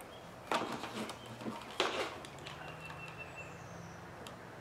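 Knocks and clatter of tools being handled on a workbench as a soldering gun is picked up, two louder knocks standing out. Then a faint steady low hum from the transformer soldering gun as it is switched on and held to a wire to solder it.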